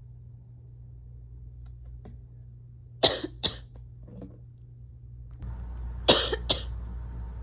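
A person coughing: two quick coughs about three seconds in, then, after a cut to a different recording with a louder background hum, two more coughs near the end.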